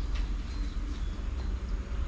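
Farmyard chickens making faint short calls over a steady low rumble on the microphone.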